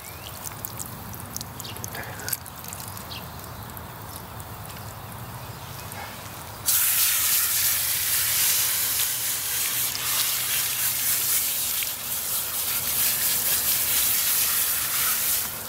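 Garden hose spray nozzle spraying water onto a wet dog's coat, a steady loud hiss that comes on suddenly about seven seconds in and cuts off near the end. Before it, only dripping and small splashes.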